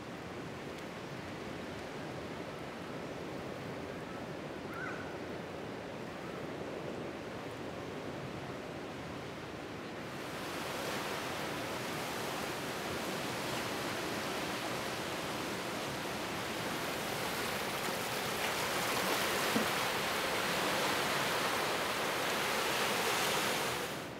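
Ocean surf breaking on a reef shore: a steady rush of waves that becomes louder and brighter about ten seconds in, then cuts off abruptly near the end.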